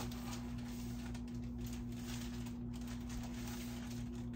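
A steady low hum, with faint, irregular rustles and light scrapes as granulated sugar is scooped and measured out for a sugar syrup.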